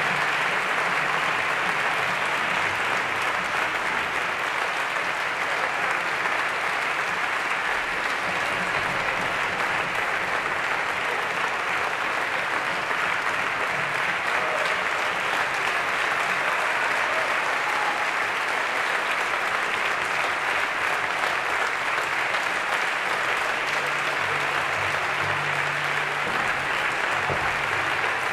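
Concert audience applauding steadily, a dense, even clapping that holds throughout.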